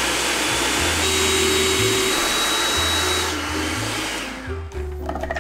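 Food processor motor running loud as it purées strawberries with sugar and lemon juice, then switched off about three seconds in and winding down to a stop.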